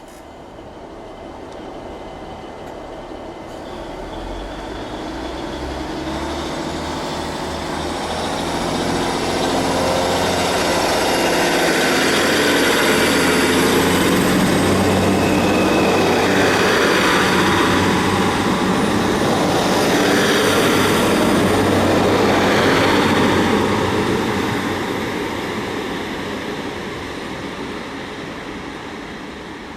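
Two coupled Class 150 Sprinter diesel multiple units rumbling in at the station, their diesel engines getting steadily louder. The sound is loudest in the middle and eases off over the last few seconds.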